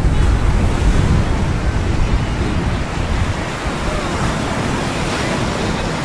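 Ocean surf washing onto the beach, with wind buffeting the microphone; the buffeting eases after about three seconds.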